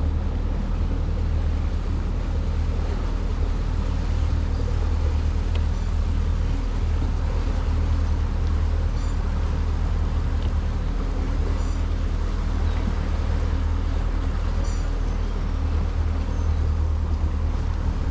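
Crestliner boat's outboard motor running steadily at low speed, a low, even drone. A few faint high chirps sound over it near the middle and end.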